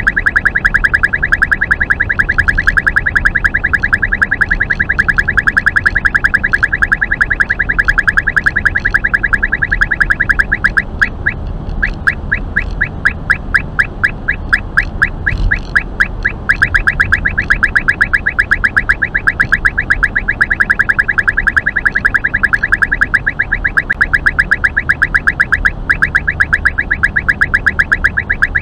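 Uniden R3 radar detector sounding its Ka-band alert, a rapid train of loud, same-pitched beeps warning of police radar at 34.6 GHz. About 11 seconds in the beeping breaks off briefly and then runs slower, at about four or five beeps a second, before quickening again. The beep rate follows the strength of the radar signal.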